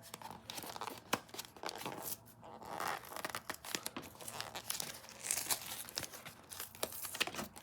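A toy's box and packaging being torn open and handled: irregular tearing and crinkling with many small sharp clicks and rustles.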